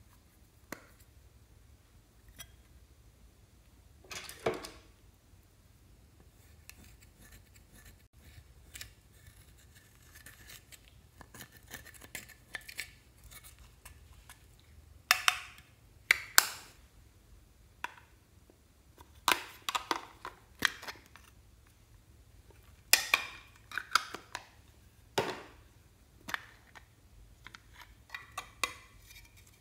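Small clicks, taps and scrapes of a plastic makeup highlighter compact being handled, with a metal tool scraping the pressed powder out of its pan. Faint scratching in the first half gives way to louder sharp clicks and scrapes in clusters from about halfway through.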